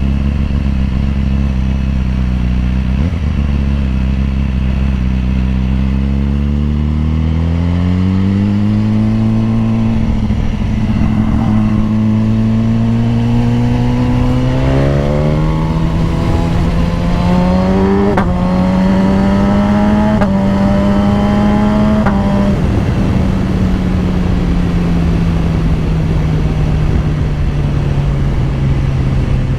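BMW S1000RR's inline-four engine under way: it holds a steady low note, then climbs in pitch as the bike accelerates. Three quick upshifts come in close succession about two-thirds through, each with a short break in the note, and then the engine note slowly falls as the bike eases off.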